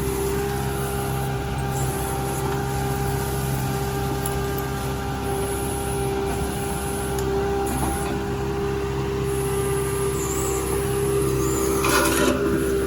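Excavator engine running steadily with a constant whine while it digs and moves dirt.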